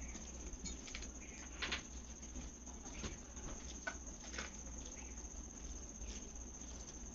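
Eating sounds of a rice-and-dal meal: soft, irregular wet clicks and smacks from handling and chewing the food, over a faint steady high whine and low hum.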